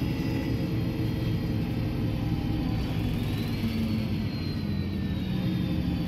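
MAN NL223 city bus under way, heard from inside the passenger saloon: its six-cylinder diesel engine and drivetrain running with a steady rumble. A thin high whine rises in pitch about three seconds in and then slowly falls away.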